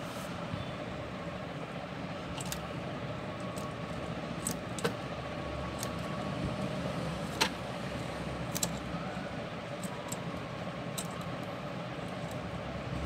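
Scattered sharp clicks and snips of wire cutters working at the rubber insulation sleeve on an inverter's heat-sink wire, about ten in all, the loudest about seven seconds in, over a steady low background rumble.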